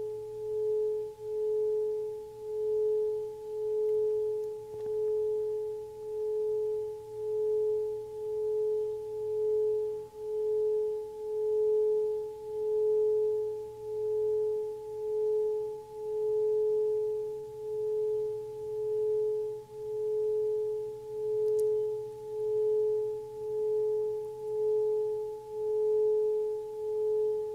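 Singing bowl sung by a mallet rubbed around its rim: one steady ringing tone with a fainter higher overtone, swelling and fading about once a second.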